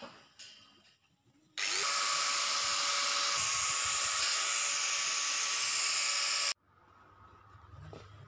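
Angle grinder cutting through slotted steel angle bar: a steady whine over a loud grinding hiss. It starts about a second and a half in, with a short rise in pitch as it spins up, and cuts off suddenly after about five seconds.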